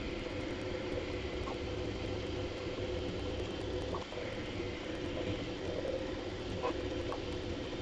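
Bambu Lab A1 3D printer running a print: a steady mechanical hum from its stepper motors and fans, with a few faint clicks.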